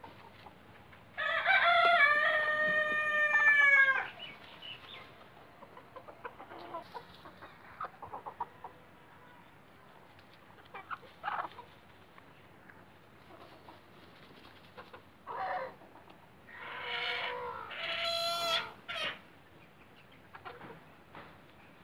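A rooster crows once about a second in, one long call of nearly three seconds that falls away at the end. Hens in a dust bath cluck quietly among faint scratching ticks, and near the end come a few shorter, louder calls.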